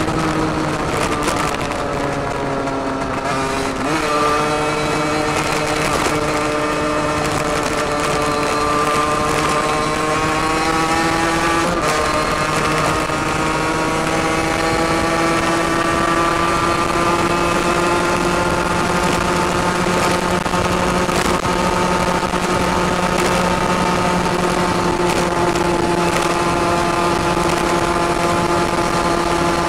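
Derbi Senda DRD's 50cc two-stroke engine through an open Turbokit sport exhaust, under way: the revs sag over the first few seconds, jump up about four seconds in, climb gradually with a small step near the middle, then hold steady.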